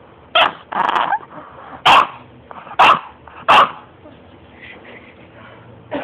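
English bulldog giving a run of about five short, loud barks and yips over the first four seconds, then going quieter.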